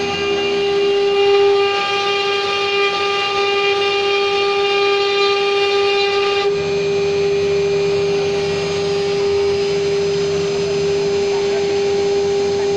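The spindle of an MY6090 stone-engraving CNC router running with a loud, steady whine as its bit engraves a wet stone slab. A little past halfway the whine's upper overtones thin out and a lower hum joins in for a few seconds.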